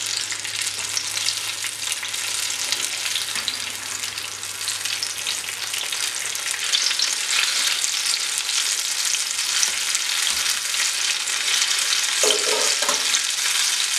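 Coated banana pieces deep-frying in hot oil in a shallow pan: a steady, dense sizzle and crackle that grows a little louder about halfway through.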